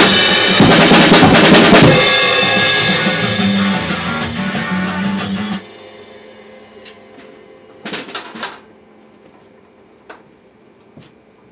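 Acoustic drum kit played hard, with bass drum, snare and crashing cymbals. The playing stops about two seconds in and the cymbals and drums ring on, fading, until they are cut off suddenly; then a few faint knocks and clicks.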